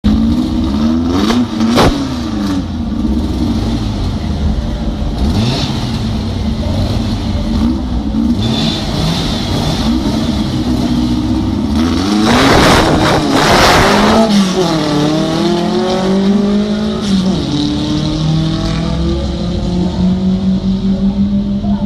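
Volkswagen Beetle drag car's engine blipped in short revs at the start line, then a loud burst at launch about twelve seconds in, followed by revs climbing hard with a gear change as the cars pull away down the strip.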